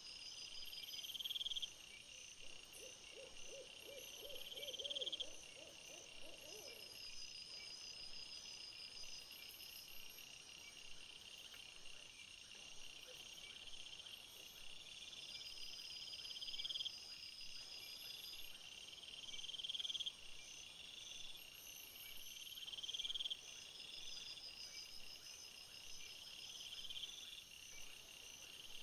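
Crickets or bush-crickets chirping steadily in high, regularly repeating phrases. About three seconds in, a short run of low, rapid pulses sounds for around three seconds.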